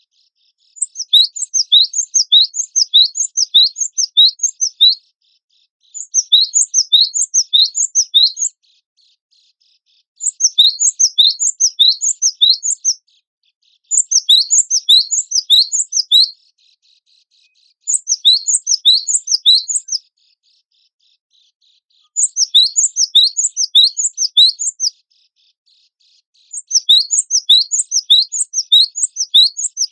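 Cinereous tit (gelatik batu) singing in repeated bouts a few seconds long, each a fast string of high, rising notes, with short pauses between bouts.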